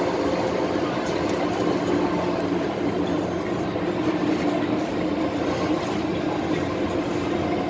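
MTR M-Train pulling into a station, heard from inside the car: a steady rumble of wheels and running gear, with a few faint steady tones underneath.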